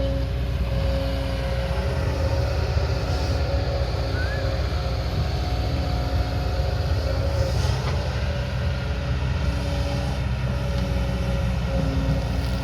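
Diesel engine of a heavy construction machine running steadily, with a steady whine above it that breaks off and resumes several times.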